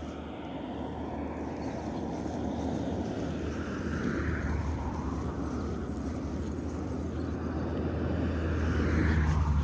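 Road traffic passing: a steady low rumble that swells as vehicles go by, loudest near the end.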